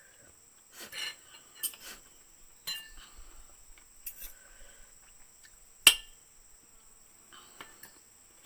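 Cutlery clinking against plates and a glass during a meal: scattered light clicks and scrapes, with one sharp clink about six seconds in. A steady high-pitched insect drone runs underneath.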